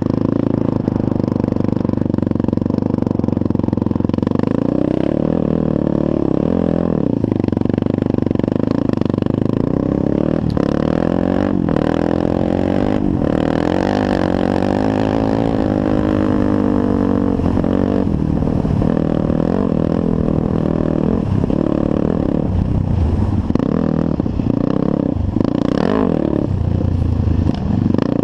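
Quad ATV engine running under varying throttle, revving up and falling back again and again, with a few sharp knocks and rattles from the machine over the bumps. The throttle is cut and reopened in quick succession in the last third.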